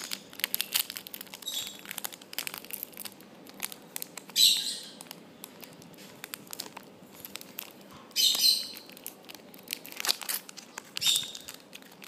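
Foil Pokémon booster pack crinkling and rustling as it is handled and pulled at, with louder tearing crackles about four, eight and eleven seconds in; the pack is hard to open.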